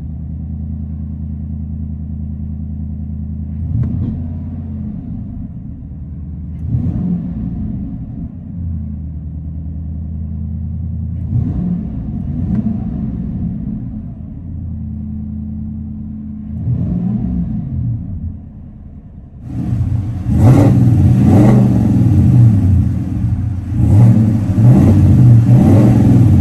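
Chevrolet Silverado Trail Boss's 6.2-litre V8 running through a Flowmaster true dual exhaust. It idles steadily and is blipped with short revs about five times. From about two-thirds of the way in it is much louder, revved repeatedly.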